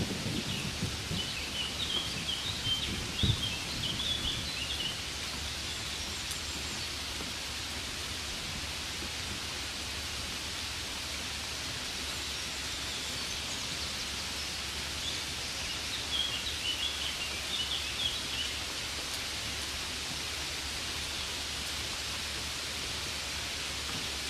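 Steady hiss of rain falling. Small birds chirp in short clusters, once in the first few seconds and again about two thirds of the way through. Low rumbling in the first few seconds ends in a single thump about three seconds in.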